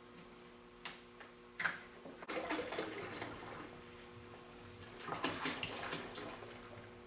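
Water pouring from a plastic gallon jug into a bucket of wort, starting about two seconds in after two light clicks and growing louder near the end.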